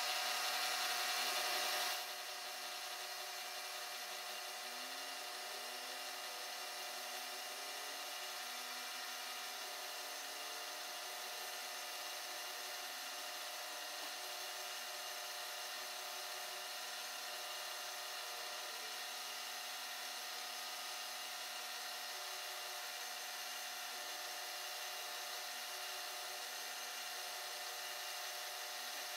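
Milling machine running with an end mill side-cutting the face of a small metal casting: a steady machine hum with cutting noise. It is louder for about the first two seconds, then settles to an even level.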